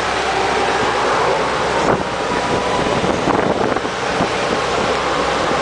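Wind buffeting the microphone over the steady running and road noise of a moving golf cart, with one sharp knock about two seconds in.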